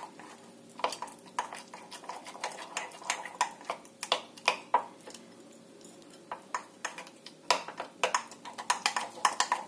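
A spoon stirring thick batter in a ceramic mug, clinking and scraping against the inside in irregular taps. The taps are sparser around the middle and come quicker near the end. The milk is being worked into the flour batter to make it smooth.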